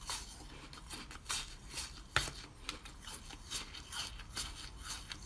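Teeth biting and crunching into a thin sheet of frozen basil-seed ice: a run of irregular crisp cracks and crackles, with one sharp snap about two seconds in.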